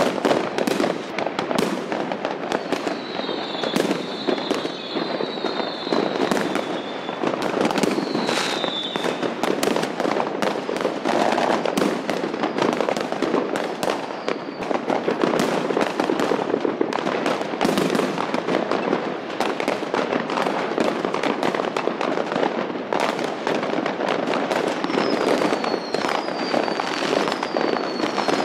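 Dense consumer fireworks and firecrackers: a constant crackle of many bangs and cracks overlapping one another. Runs of short falling whistles come through a few times.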